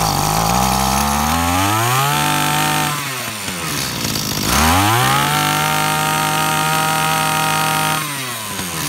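Maruyama 32cc two-stroke brush cutter engine running, revved up twice. The throttle is opened for about a second and a half and let back down, then opened again for about three seconds before dropping back to idle. The engine runs strong.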